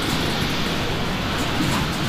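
Union Pacific Big Boy 4014, a 4-8-8-4 articulated steam locomotive, getting under way slowly with a steady loud rush and hiss of steam from the open cylinder cocks at its front.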